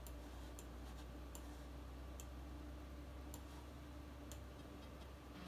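Mouse-button clicks, about eight of them at irregular spacing, as icons are selected and dragged in the Macintosh Finder, over a steady low hum.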